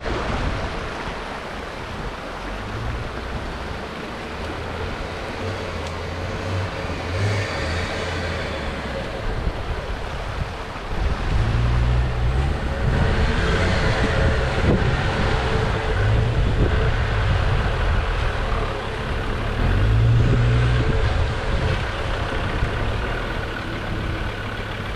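Off-road 4x4 engine working at low speed over rocks, its throttle coming on and off in short surges, louder in the middle as the vehicle comes closer, over the steady rush of a shallow stream.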